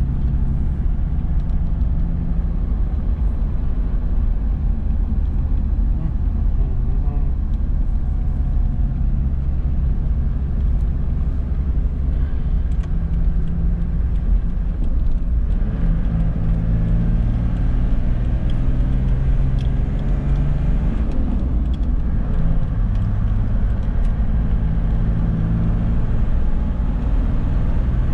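Toyota Land Cruiser's engine and tyre noise heard from inside the cabin while driving on a highway: a steady low drone, the engine note shifting slightly in pitch about halfway through.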